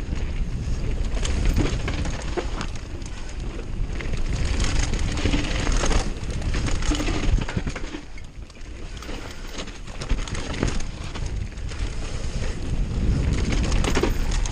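Downhill mountain bike descending a dirt trail: wind buffeting the microphone over tyre noise on dirt and the rattle and knocks of the bike over bumps, easing off briefly about eight seconds in.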